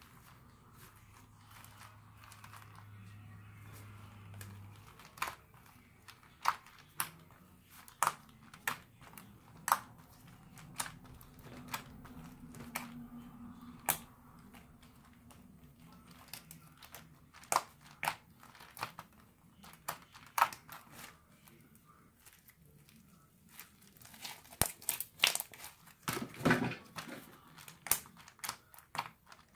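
Clear-glue slime mixed with foam beads being pressed and kneaded by hand, giving scattered sharp crackles and pops, with a quick run of them near the end.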